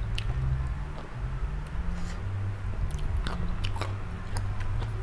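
A person chewing crunchy salad and raw vegetables close to the microphone: many short, crisp crunches and mouth clicks scattered irregularly, over a steady low hum.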